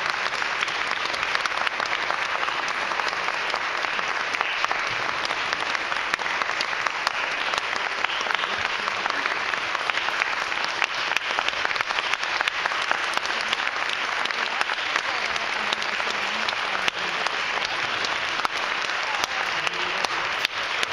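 Audience applauding steadily, a dense, unbroken clapping of many hands.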